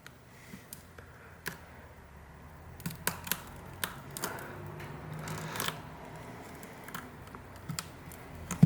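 Scattered clicks and short scrapes of a thin metal pry tool working around the shattered screen glass of a Sony Xperia XZ2, prying the display away from its adhesive. A cluster of clicks comes about three seconds in, and a longer scrape a little past halfway.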